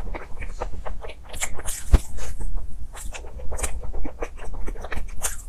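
Close-miked chewing of a soft pastry: a run of irregular wet mouth clicks and smacks. A single sharp thump about two seconds in is the loudest sound.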